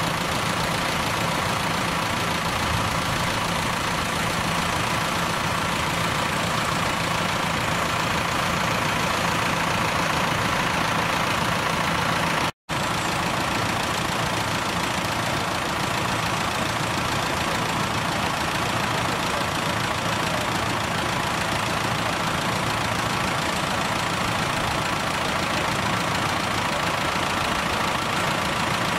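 Several tractor engines idling and running together as a steady mechanical drone. The sound drops out for a split second about twelve seconds in.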